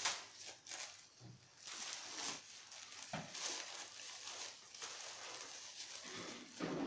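Plastic carry bags of grapes and the clear plastic liner bag rustling and crinkling in irregular bursts as a bag of grapes is pressed down into a carton.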